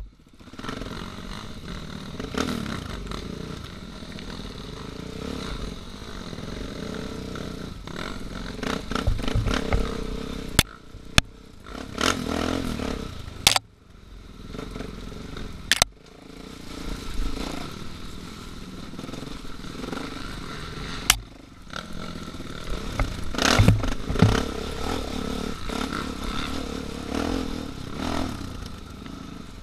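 Enduro motorcycle engine running as the bike is ridden over a rocky dirt track, rising and falling with the throttle, with clattering from the ride and about five sharp knocks along the way.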